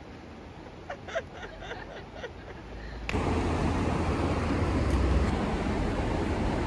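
Faint distant voices, then, about three seconds in, a sudden switch to a steady, loud rushing noise that carries strong low rumble.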